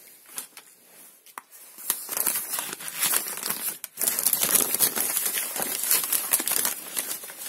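Crumpled wrapping paper rustling and crinkling as it is pulled away from a packed plant. The sound is sparse crackles at first, then continuous and louder from about two seconds in.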